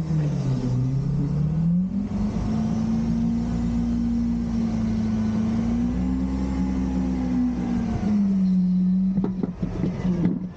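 Garbage truck's diesel engine revving up, holding at a raised speed for several seconds, then easing back down, with a few knocks near the end.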